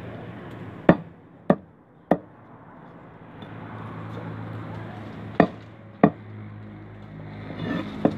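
Cleaver chopping fish on a wooden stump chopping block: three sharp strikes about half a second apart, then two more a few seconds later, and one more near the end.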